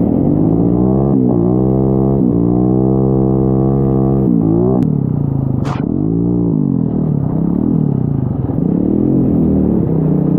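Single-cylinder four-stroke YCF pit-bike engine of a homemade drift kart, its revs rising and falling again and again as it is driven, held briefly steady about two seconds in.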